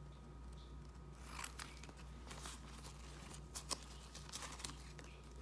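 Small steel scissors snipping through a paper towel edged with painter's tape: a string of faint, irregular short snips.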